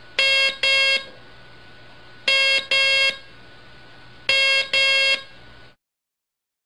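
Morse code tone keyed as two dashes, dah-dah (the letter M), sent three times about two seconds apart. A steady faint hiss lies underneath and cuts off near the end.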